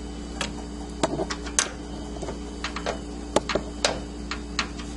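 Irregular sharp clicks and taps of metal parts worked by hand in a computer case as a graphics card's bracket is fastened in place, about ten in all, over a steady low hum.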